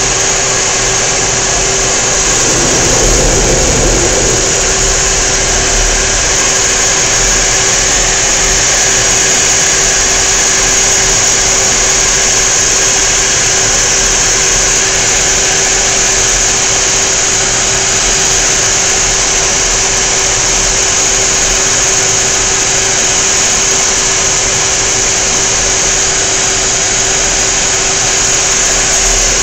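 Steady jet engine and rushing-air noise inside the cockpit of a Blue Angels F/A-18 Hornet in flight: a loud, even hiss with a steady hum underneath. A low rumble swells briefly about three seconds in.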